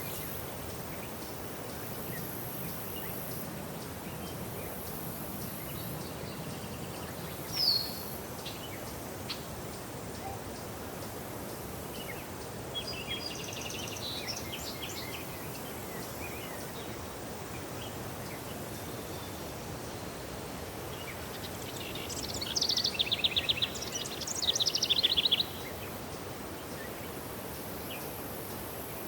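Songbirds calling and singing over a steady rural background hiss: a short call about eight seconds in, a brief phrase a few seconds later, and a louder song of rapid trills about three-quarters of the way through.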